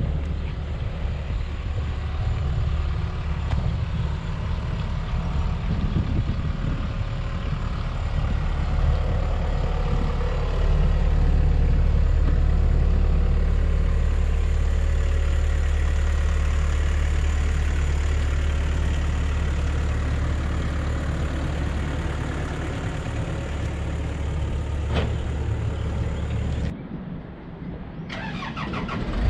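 2010 Komatsu PC138US-8 excavator's diesel engine running steadily, getting louder about ten seconds in. There is one sharp click near the end, and then the sound briefly drops away.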